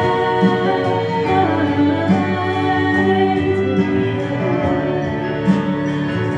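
A song performed live: a sung melody in held notes over instrumental accompaniment.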